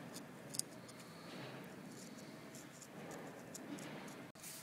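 Faint scratching and small ticks of a narrow metal carving tool incising a chiselled-plaster relief, with one sharper tick about half a second in.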